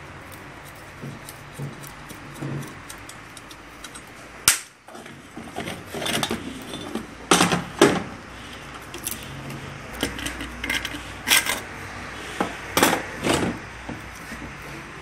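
Metal clanks and knocks as a removed turbocharger and socket tools are handled and set down on a concrete floor, a string of separate sharp hits with the loudest a few seconds apart.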